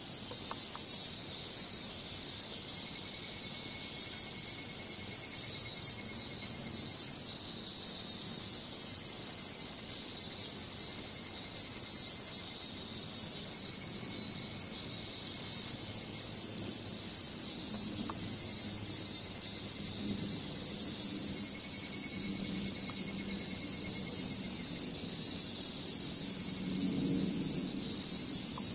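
A steady, high-pitched chorus of cicadas.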